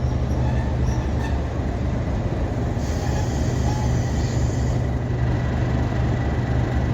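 Diesel locomotive engine, a Class 37, running under way with a steady low drone, and a hiss rising over it for about two seconds midway.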